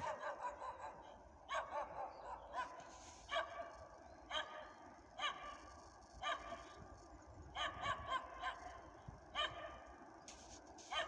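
A dog barking repeatedly, short barks coming about once a second, sometimes in pairs.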